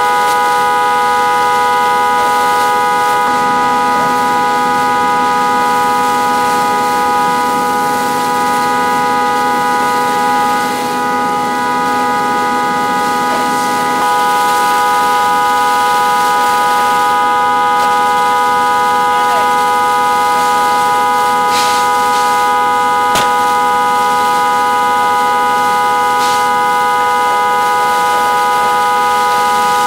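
Fire engine engine and pump running at pressure to feed hose lines: a loud, steady whine of several held tones that does not rise or fall.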